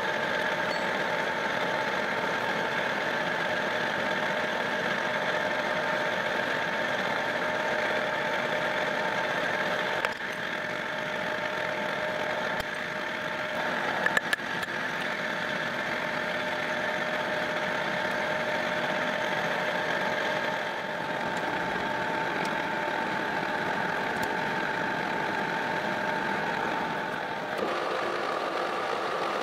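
Metal lathe running steadily with a constant mechanical hum, turning a repaired planer shaft. There are a few light clicks about ten and fourteen seconds in, and the pitch of the hum shifts near the end.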